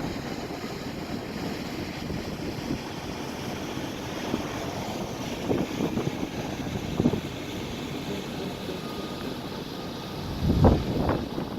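Steady outdoor hum of passing street traffic with wind buffeting the microphone, swelling louder in a low rush near the end.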